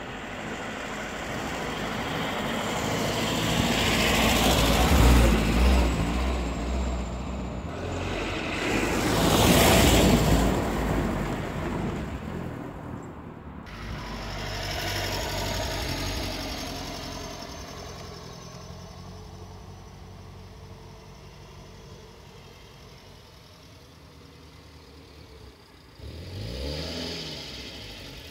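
A 1950 Mercedes-Benz 170Va's side-valve four-cylinder engine as the car drives by on cobblestones, growing louder and fading as it passes close, with tyre noise on the cobbles at the loudest moments. A few seconds before the end the engine revs up and down.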